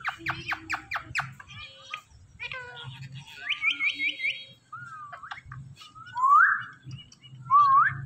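Indian ringneck parakeets calling. A quick run of about seven sharp falling chirps comes in the first second and a burst of rising chirps about three and a half seconds in. Two loud rising whistled calls follow near the end.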